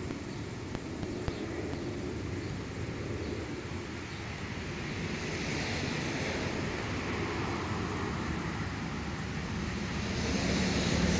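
Steady rushing wind noise on a phone microphone outdoors, growing a little louder near the end.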